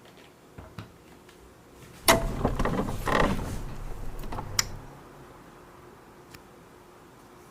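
Automatic cat feeder dispensing: a sudden burst of mechanical whirring and rattling about two seconds in that lasts about two and a half seconds, with a few small clicks before and after.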